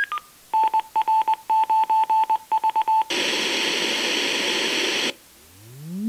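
A Kenwood SP-23 communications speaker playing an audio test file: a Morse code ID beeped out as a single tone for about two and a half seconds, then two seconds of pink noise hiss. Near the end a test tone starts low and sweeps steadily upward in pitch.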